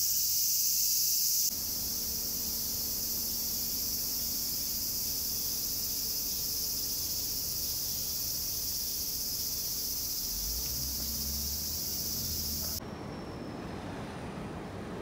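Dense, steady, high-pitched shrilling of a cicada chorus in the trees. It cuts off abruptly near the end, where quieter city street noise takes over.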